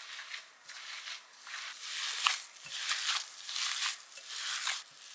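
Gloved hands kneading and squeezing a crumbly dough in a glass bowl: soft rustling, squishing swells that come about one every second, with a few faint taps.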